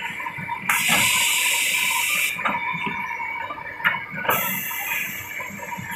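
Belt-fed multi-row woodworking boring machine working a panel: two long hisses of compressed air from its pneumatic clamps and cylinders, each about a second and a half, with sharp knocks as the cylinders move, over a steady running tone from the machine.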